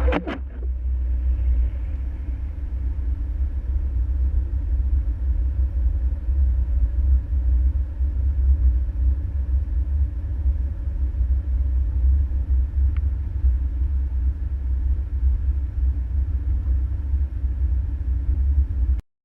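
Steady low rumble of a car driving, heard from inside the vehicle, with road and engine noise. It cuts off abruptly near the end.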